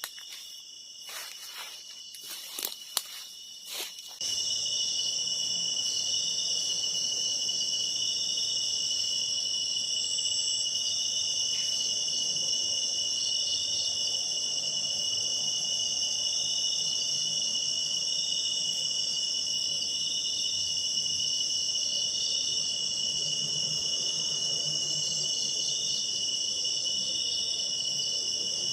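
A steady chorus of crickets and other insects, shrilling at several high pitches at once without pause. A few sharp clicks and knocks come in the first few seconds, before the chorus sets in suddenly about four seconds in.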